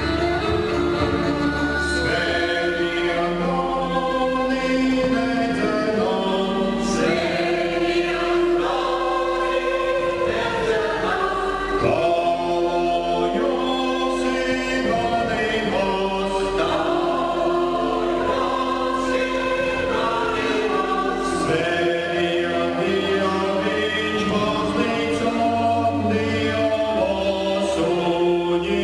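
Choir singing, holding long chords that shift every second or two.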